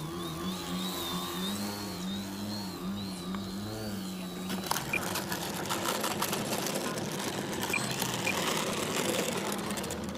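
Electric motor and propeller of a small foam aerobatic RC plane buzzing, the pitch wavering up and down with the throttle while it hangs low, then cutting off about four and a half seconds in. After that comes a rougher noise with scattered clicks.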